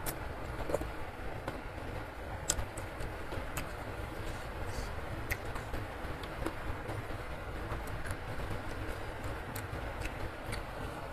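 Heavy rain falling steadily as a continuous hiss and rumble, with scattered small clicks of a metal fork and spoon against a noodle bowl and eating sounds.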